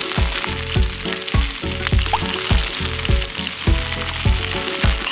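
Pork and onion slices sizzling in a small camping frying pan on a portable gas stove, a steady frying hiss. Background music with a steady drum beat, about two beats a second, plays over it.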